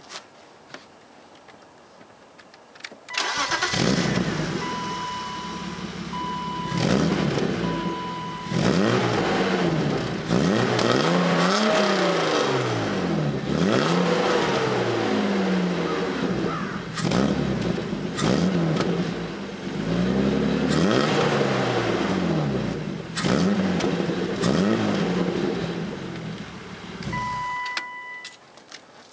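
1994 BMW 325is (E36) inline-six cranked and started about three seconds in, then revved again and again in a run of rises and falls in pitch, and switched off near the end. A few short electronic beeps sound just after it starts and again as it shuts off.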